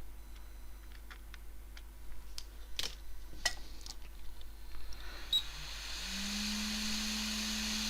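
Faint clicks and taps of small tools for the first few seconds, then a short beep and a hot-air rework station's blower starting about five seconds in: a steady hiss with a low hum underneath.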